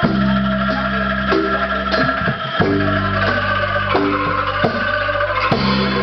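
Live band music without vocals: a drum kit and an electric bass guitar playing sustained low notes, with short repeated notes from bamboo instruments such as angklung and bamboo xylophone.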